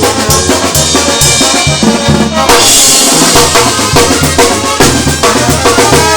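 Mexican banda playing: brass over a drum kit's bass drum and snare, with a heavy bass line. A cymbal rings out about two and a half seconds in.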